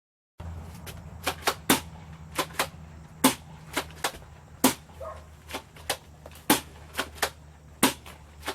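Airsoft guns firing single shots in an irregular exchange, some in quick pairs, over a steady low hum.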